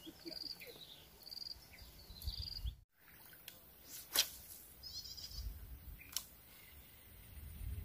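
Faint wetland ambience. A high chirping call repeats about once a second for the first three seconds and cuts off suddenly. Then come two sharp clicks about two seconds apart from a baitcasting reel as the lure is cast and reeled in, with a short high trill between them.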